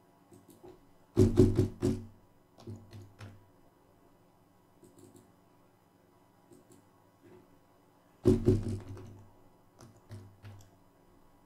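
Typing on a computer keyboard: two quick flurries of heavy keystrokes, about a second in and again about eight seconds in, with scattered single key presses between.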